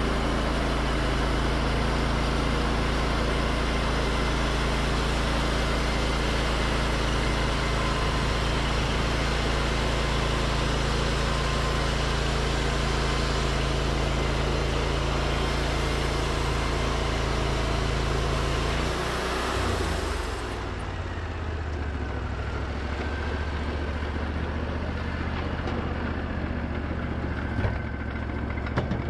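Wood-Mizer LT40 bandsaw mill running, its band blade cutting along a white pine cant with the engine under steady load and a hiss of sawing. About two-thirds of the way through, the sawing stops and the sound drops to a lower, quieter engine run.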